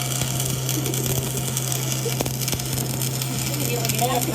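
Arc welding: a continuous crackling hiss over a steady electrical hum, with a few sharp clicks, one about two seconds in.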